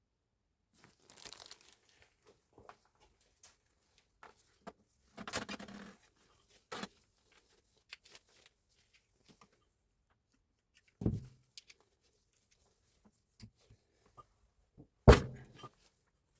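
Intermittent handling noises: scattered light clicks, two short rustling or scraping sounds, and two sharper knocks, the second and louder one near the end.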